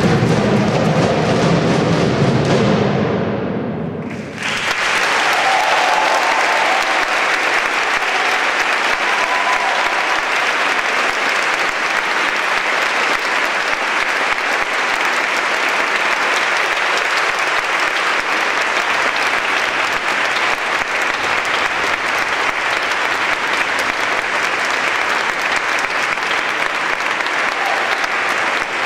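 Music fades out over the first few seconds, then a large audience applauds steadily.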